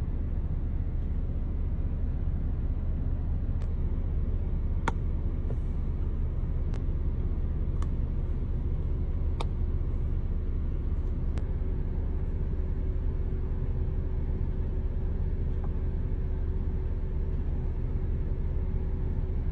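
Steady low rumble inside a car with the engine running, with a handful of faint, sharp small clicks over the first half.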